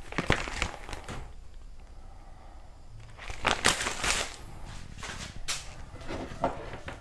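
Handling noises: paper rustling and light knocks, in short bursts about a second in and again about halfway through.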